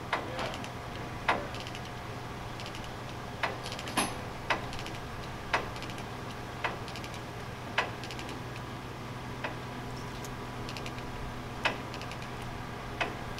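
Sharp metallic clicks, irregularly spaced about a second apart, from chain tie-down work on the lowboy trailer carrying the caboose, over the steady hum of the semi truck idling.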